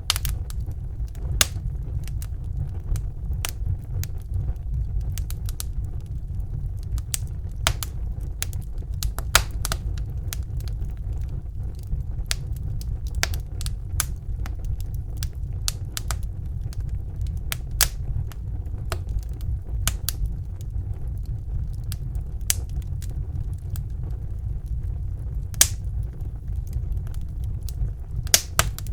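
Wood fire in a fireplace crackling: irregular sharp pops and snaps, a few louder than the rest, over a steady low rumble of the flames.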